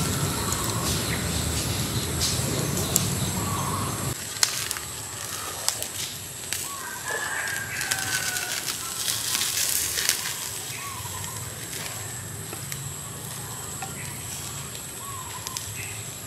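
Open wood fire crackling with scattered sharp pops, while a few short bird chirps sound in the background. A low rumble cuts off abruptly about four seconds in.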